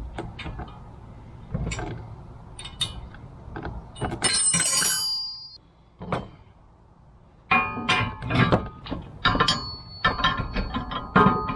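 Metal blower-rack parts and hardware clinking and rattling as they are handled and fitted together during assembly. A bright ringing clang about four seconds in is the loudest moment, and after a short lull a quick run of clinks follows.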